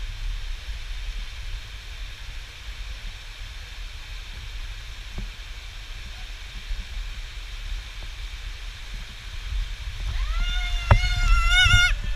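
Creek water rushing steadily over rocks, with a low rumble of wind and handling on the camera. About ten seconds in, a high-pitched held cry of about a second and a half, rising at its start and wobbling as it ends, with a couple of sharp knocks from the camera pole.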